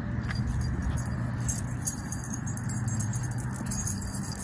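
Light metallic jingling and clinking, scattered through the middle and latter part, over a steady low rumble.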